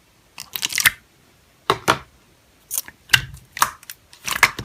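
Slime being pressed and squished by hand, making sharp crackling, clicking pops in four short bursts.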